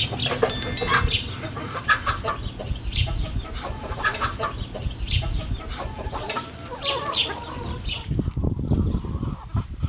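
Chickens clucking, a run of short calls one after another over a low background rumble.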